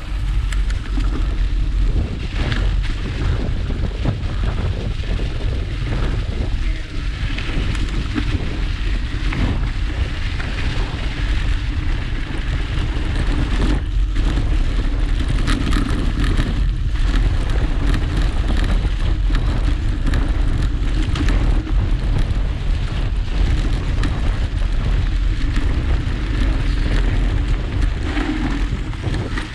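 Mountain bike riding over a dry leaf-covered dirt trail: a steady rumble of wind on the camera's microphone mixed with the knobby tyres crackling through fallen leaves, with scattered clicks and knocks as the bike goes over bumps.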